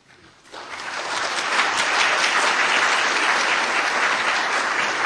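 Audience applauding: the clapping starts about half a second in, swells over the next second or so, then holds steady.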